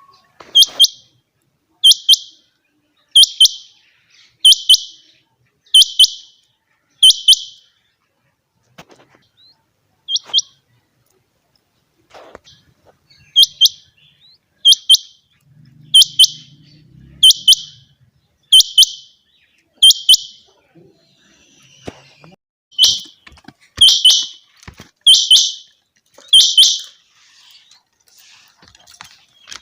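Rain quail calling: a high, sharp double note repeated about every second and a half, in three runs of five or six calls separated by short pauses.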